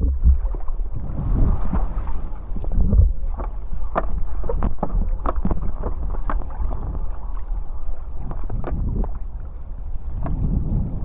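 Wind buffeting the microphone over rushing water while riding a hydrofoil board downwind on open ocean. Sharp splash ticks come thickest in the middle.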